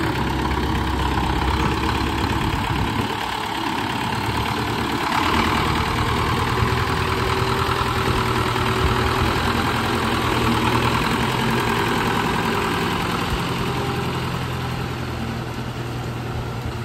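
Hindustan tractor's diesel engine running at low revs, loud and close, as the tractor manoeuvres slowly. The engine note shifts briefly about three to five seconds in.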